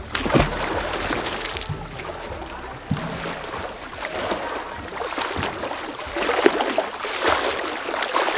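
Water splashing as people jump into and swim in a stepwell's pool, with several sharp splashes among a steady wash of water noise.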